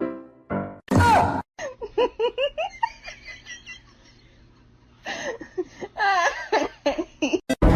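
Laughing in runs of short, quick pitched bursts, with a pause midway before a second run.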